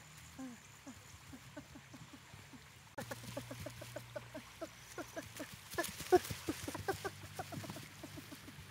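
A rapid string of short animal calls, each falling in pitch, several a second. They grow louder and busier about three seconds in, with one sharp, louder click a little after halfway.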